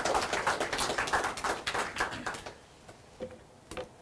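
Audience applause, a dense patter of many hands clapping, dying away about two and a half seconds in; a couple of faint knocks follow.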